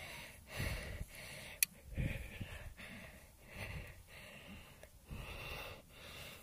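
A girl breathing softly close to a phone's microphone, a run of breaths in and out about one a second, with a single sharp click about a second and a half in.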